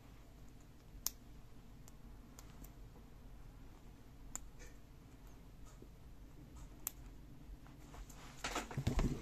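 Faint scattered clicks of a paperback book being held by hand, then louder rustling and knocking near the end as the book is moved away.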